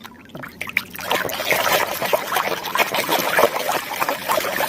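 Water running and splashing over a muddy plastic toy as it is rinsed, building up about a second in.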